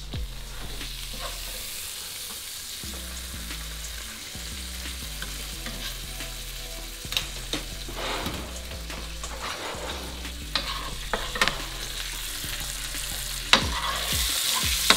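Floured meat frying in butter in a pan on a gas range, sizzling steadily, with a few sharp clicks and knocks of a utensil against the pan in the second half.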